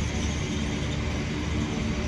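Intermodal container freight train rolling past: a steady rumble and hiss of wagon wheels on the rails.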